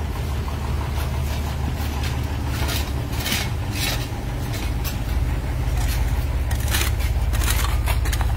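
Backhoe loader's diesel engine running steadily, louder from about five seconds in, with scattered scraping and clinking of broken paving stones and rubble.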